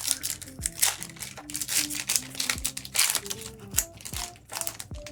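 Foil booster pack wrappers crinkling and being torn open in irregular bursts, over background music.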